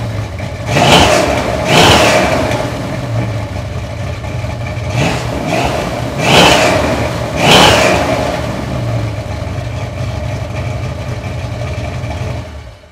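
Stationary 1972 Dodge Dart Swinger's 360 V8 with a Mopar Performance 284/484 cam, exhausting through stock manifolds into 2.5-inch pipes dumped ahead of 40-series Flowmaster mufflers, blipped up in short revs about five times and dropping back to idle between them and afterwards.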